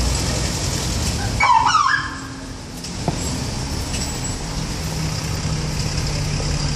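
Road traffic at a busy roundabout, with a double-decker bus and vans passing close by and an engine humming steadily in the last part. About a second and a half in there is a brief high squeal.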